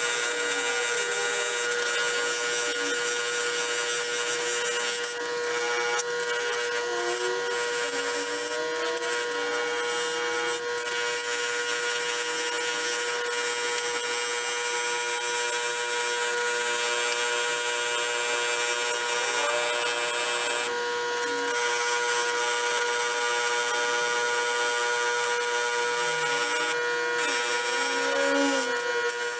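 A small electric power tool running steadily with a constant whine, being used to clean up an old screwdriver.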